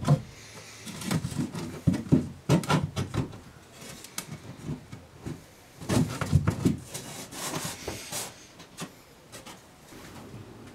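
Thin plywood panel knocking and scraping against a wooden canoe gunwale as it is handled and pressed into place, in irregular clusters of short knocks and rubs.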